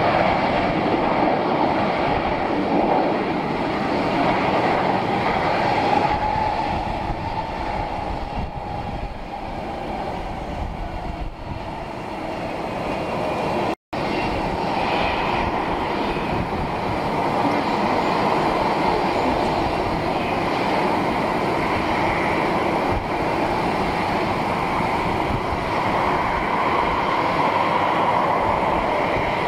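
Jet airliner engines running: a loud, steady rush of noise with a faint high whine. It eases a little partway through, cuts out for an instant about 14 seconds in, then comes back just as loud.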